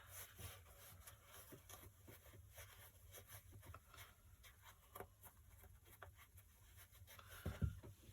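Faint scratchy rustling of wadding being teased apart and packed into a stuffed felt bird, with one soft low thump near the end.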